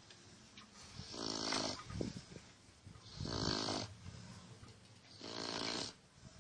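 Steady, rhythmic snoring: three loud, raspy snores about two seconds apart, with quieter breathing between them.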